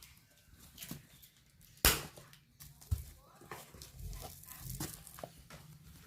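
Plastic diaper packaging being handled and opened, crinkling and rustling with sharp crackles, the loudest snap about two seconds in.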